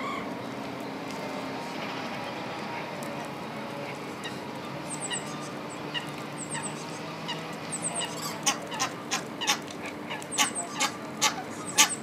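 Egyptian geese calling: a few faint high chirps, then from about two-thirds of the way through a run of loud, short honks, about two a second, getting stronger toward the end.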